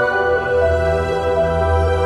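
Background music in a calm new-age style: held, sustained chords over a steady low bass.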